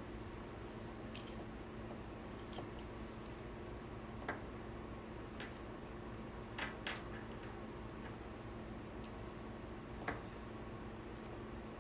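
Scattered small clicks and taps, about seven in all, from handling a plastic plug and its terminal screws while wires are being worked under them, over a steady low hum.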